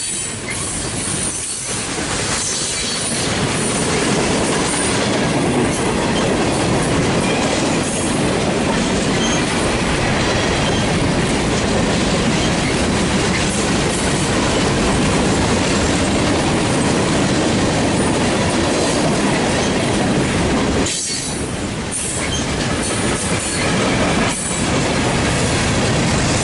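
Freight cars of a long train rolling past close by: steel wheels on rail making a steady rumble and clatter, easing briefly twice near the end.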